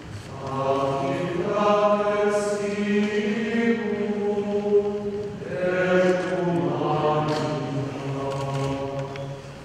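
Choir singing a slow church hymn in long held notes: two phrases, with a short break between them about five seconds in.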